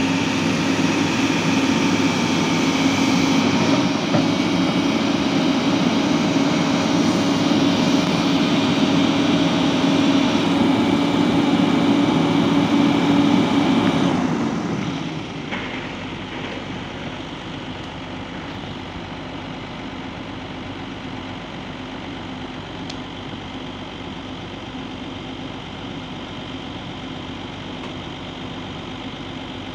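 Sany excavator's diesel engine running steadily, with a strong even hum; about halfway through the sound drops noticeably in level and carries on steady and quieter.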